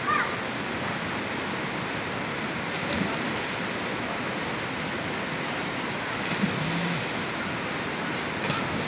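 Steady rushing of a shallow rocky creek's water running over stones. Brief faint children's voices come through right at the start and again about two-thirds of the way through.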